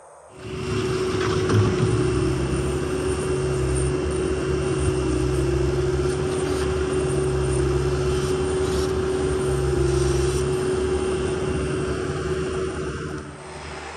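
Bobcat skid steer loader's diesel engine running hard as it pushes its bucket into a manure pile and scoops, with a steady high whine over a low rumble. It starts suddenly about half a second in and drops away near the end.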